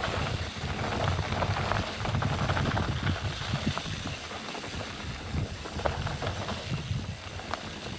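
Mountain bike ridden down a dirt trail, heard from a helmet camera: wind rumbling on the microphone over tyre noise, with scattered knocks and rattles from the bike.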